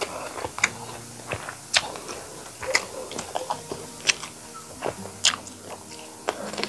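Close-miked chewing of a mouthful of rice and chicken curry, with irregular sharp mouth clicks and smacks about once or twice a second.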